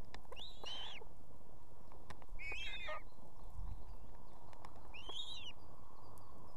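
Ospreys at the nest giving three short, high whistled calls, each about half a second and bending up then down in pitch, spaced a couple of seconds apart, over a steady background hiss.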